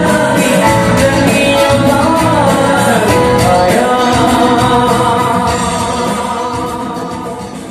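Live band music: a male lead singer over acoustic guitar, electric guitar, keyboard and flute. The music fades out over the last few seconds.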